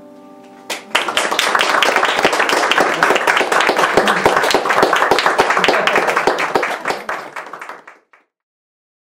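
A sustained piano chord fades away, then an audience breaks into applause about a second in. The clapping goes on for about seven seconds and cuts off suddenly near the end.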